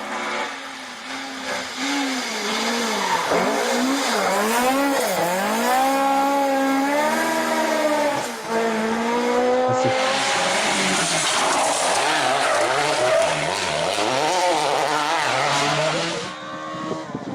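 Rally car engine revving hard at speed, its note repeatedly climbing and dropping through gear changes, over tyre and road hiss. About ten seconds in the sound switches abruptly to a louder hiss under the engine, as if a different stretch of the stage.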